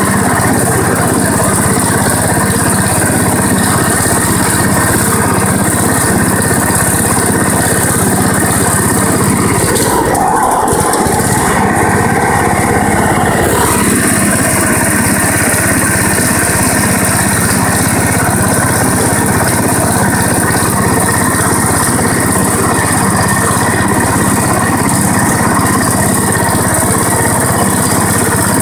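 MTD B135 ride-on lawn tractor running steadily while mowing grass, its engine and cutting deck heard from the driver's seat. The sound shifts briefly for about three seconds, roughly ten seconds in.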